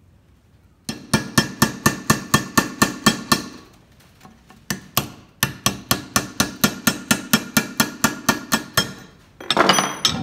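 Rapid, even metallic clinks with a short ring, about five or six a second, in two runs, from steel tools working the split nut on a Reed vise's lead screw to get it off. A brief louder rattle comes near the end.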